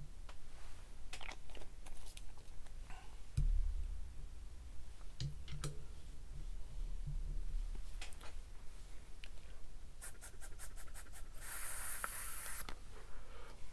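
Small clicks and taps from handling an e-liquid bottle and a dripper atomizer, then near the end a quick run of clicks and a hissing draw of about a second and a half through the atomizer as it is fired and the vapour inhaled.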